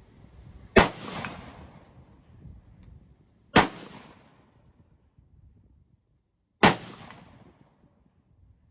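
Three single shots from a Troy P7A1 AR-15 pistol in 5.56 with a 7.5-inch barrel, about three seconds apart. Each crack is followed by a rolling echo.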